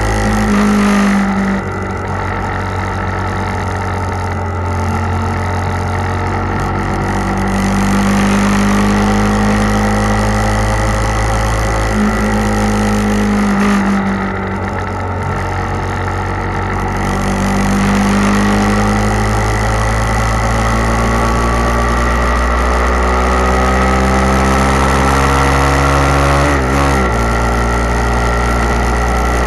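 Motorcycle engine running while riding at road speed, its pitch dipping and rising a few times with throttle and gear changes, over a steady rush of wind and road noise.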